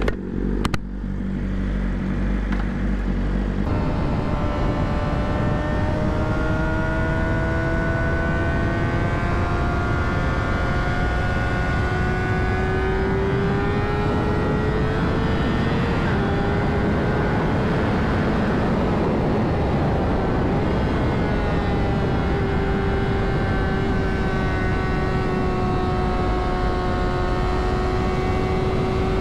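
2009 Honda CBR600RR's inline-four engine under way at high revs, its pitch climbing slowly, dropping about halfway through and then holding, under a steady rush of wind. In the first few seconds it runs at a steadier, lower note before changing abruptly.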